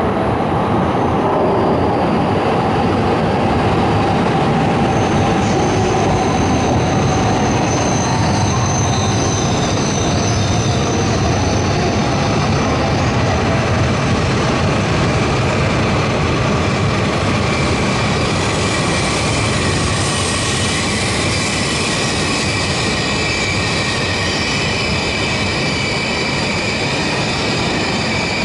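E6 series Shinkansen train moving slowly along the platform: a steady, loud rumble of wheels and running gear. Thin high squealing tones come in about five seconds in and die away, and a lower squeal sets in later and holds to the end.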